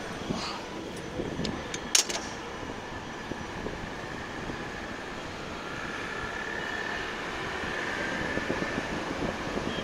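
Steady noise of city street traffic rising from the road below, with a few sharp clicks and one louder knock about two seconds in. A faint high steady tone runs for a couple of seconds late on.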